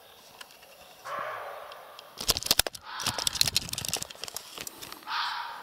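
Dense clicking, knocking and rattling of a handheld video camera being handled close to its own microphone while its faulty stabiliser is put right, with a short harsh rasp about a second in and another near the end.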